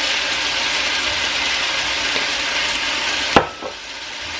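Chicken sizzling steadily as it browns in a frying pan. A single sharp click comes a little over three seconds in, after which the sizzle is fainter.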